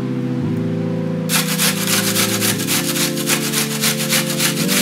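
A whole onion rubbed up and down a metal box grater: quick, regular scraping strokes that start about a second in.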